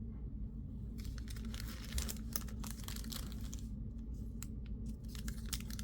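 Foil trading-card pack wrapper crinkling as it is handled, with quick crackles and small tearing sounds, strongest from about a second in, easing briefly, then picking up again near the end.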